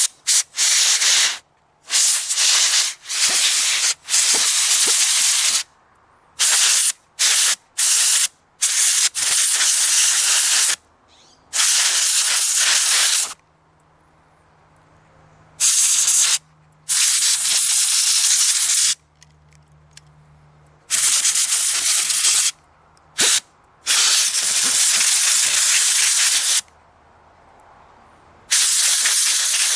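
Canned compressed air sprayed in repeated hissing blasts, some short puffs and some held for several seconds, blowing dust out of a cuckoo clock movement.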